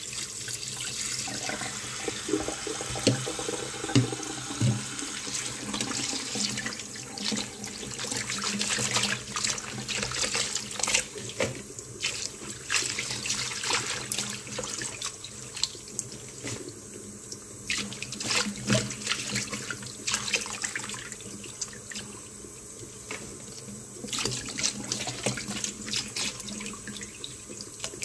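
Tap water running into a stainless steel bowl of kailan leaves, with irregular splashing as the leaves are rinsed.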